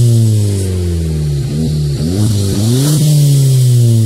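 Volkswagen Polo's engine revved with the exhaust muffler removed, heard at the tailpipe. The revs fall back slowly, blip briefly about halfway through, then climb quickly to a bigger rev near the end and drop away again.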